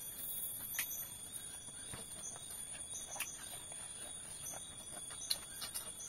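Night insects keep up a steady, shrill high-pitched trill. A few soft clicks and rustles come through it as food is picked off banana leaves and eaten by hand.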